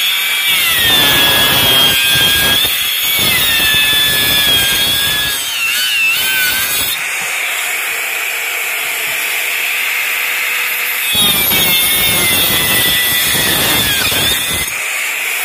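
Makita compact circular saw ripping a wooden plank lengthwise into strips. The motor whine drops in pitch as the blade bites into the wood during two cuts: one in the first five seconds and another starting about 11 s in. Between the cuts and near the end it runs free at a higher, steadier pitch.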